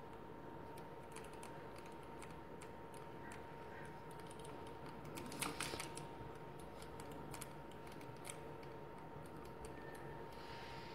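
Faint, scattered small clicks and rustles of hands working thick cotton cord while tying a macramé square knot, slightly louder about five and a half seconds in.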